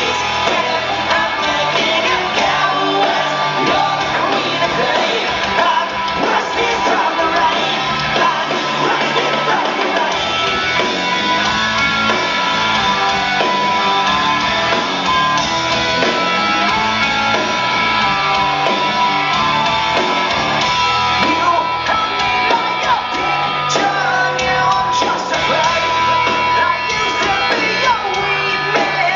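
Live rock band playing with a lead singer's shouted and sung vocals, heard from within the audience in a large hall.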